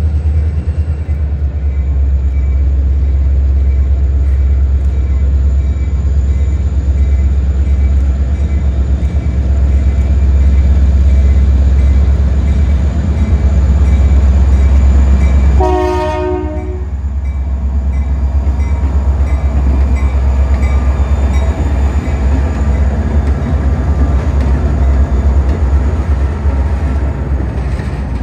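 Indiana Harbor Belt freight train passing close by. Its diesel locomotives rumble heavily for the first half. About halfway through a short horn blast sounds, and the rumble drops as the autorack cars roll past with steady wheel noise.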